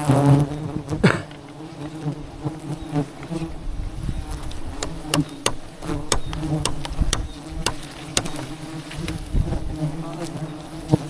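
Swarm of wild honey bees buzzing steadily in a low hum, with scattered sharp clicks over it.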